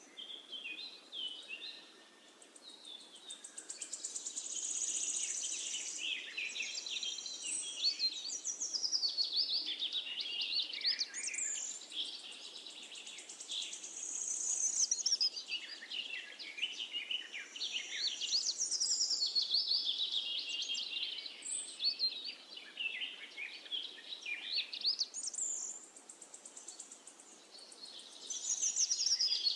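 Songbirds singing: a continuous stream of rapid chirps, trills and warbles, swelling and fading in phrases every few seconds.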